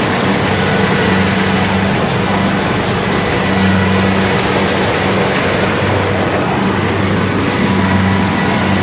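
Rice combine harvester running steadily: a constant mechanical rush with a low engine hum that swells and eases every couple of seconds.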